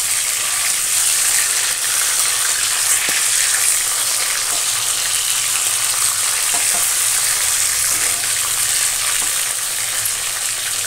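Pabda fish sizzling steadily as they fry in hot mustard oil in a kadai, with only a few small pops. The cook puts the light spitting down to the mustard oil. A spatula moves and turns the pieces in the pan.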